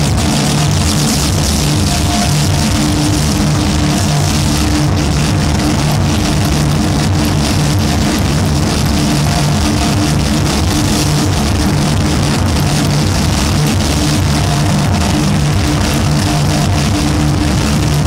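Loud, dense psychedelic noise-drone music: a thick distorted wash over several held low notes, steady in loudness.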